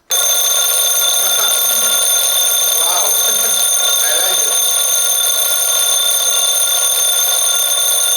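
Mebus digital alarm clock's electronic bell alarm ringing, starting abruptly and holding a loud, harsh, steady ring of high-pitched tones.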